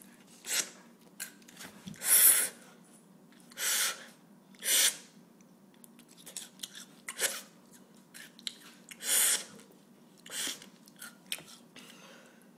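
A boy sucking air hard through his mouth to pull small snack pieces off a countertop, in about eight loud hissing bursts each under a second long, with small clicks in between.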